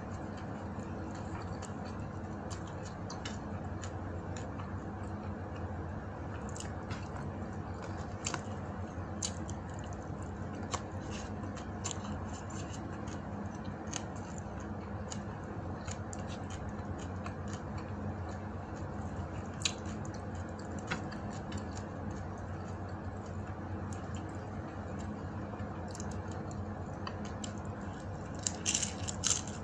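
Close-up chewing and mouth sounds of someone eating fried dried fish with egg and rice by hand, with scattered small clicks and a burst of louder clicks near the end, over a steady low hum.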